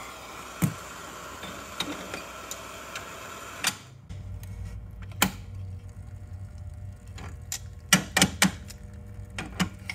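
Handheld gas torch flame hissing, then cut off about four seconds in. Sharp metallic clicks and clanks follow as the steel mold is shifted with locking pliers on the bench, loudest in a quick run of clacks near the end.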